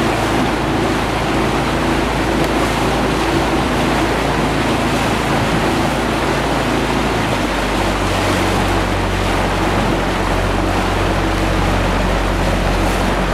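Small motorboat's outboard engine running steadily at low speed, with wind noise on the microphone and water noise; the engine note shifts about halfway through.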